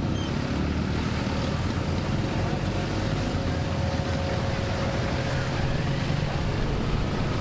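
Steady rumble and hiss of aircraft engine noise, with a faint steady whine.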